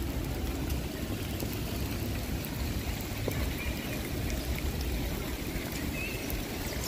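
Steady rain falling on wet paving, an even hiss over a constant low rumble.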